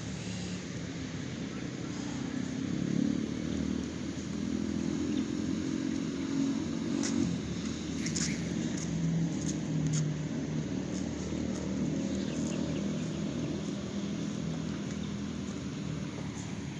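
Steady hum of motor traffic, engines whose pitch drifts up and down, with a few brief ticks a little past the middle.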